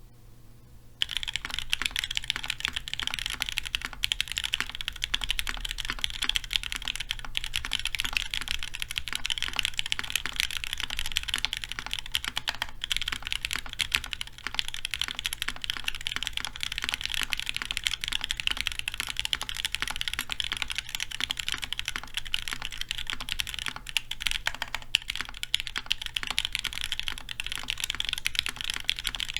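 Custom mechanical keyboard with SP Star Meteor White switches, GMK Dolch keycaps and an aluminium plate on an O-ring mount, being typed on quickly and continuously. The typing begins about a second in.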